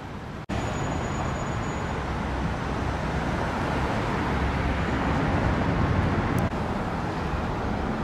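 Steady road traffic noise from passing cars and buses. There is a brief gap about half a second in where the recording cuts.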